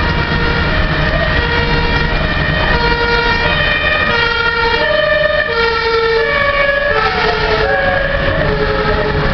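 Two-tone emergency-vehicle siren (the German "Martinshorn"), alternating between a high and a low tone about every half second and dropping slightly in pitch about halfway through, over a steady low rumble.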